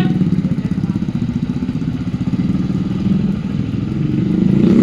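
Motorcycle engine running with a rapid, even firing beat, revving up louder near the end.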